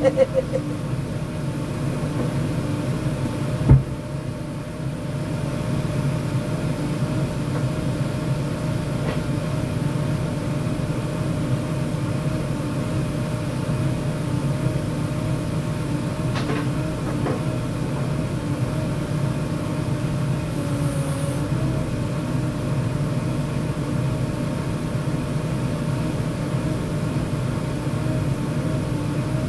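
JCB 3DX Super backhoe loader's diesel engine idling steadily, with one sharp knock a few seconds in.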